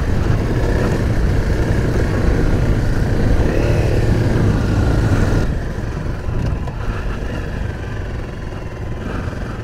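Dual-sport motorcycle engine running steadily, with a hiss over it that eases a little about halfway through.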